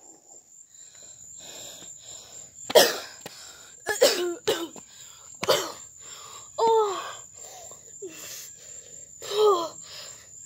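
A boy coughing and wheezing, out of breath, with several loud gasping groans that slide down in pitch, breathing heavily between them.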